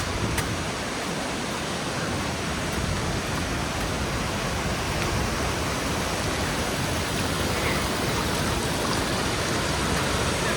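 Steady rush of river water pouring over rocks at a waterfall.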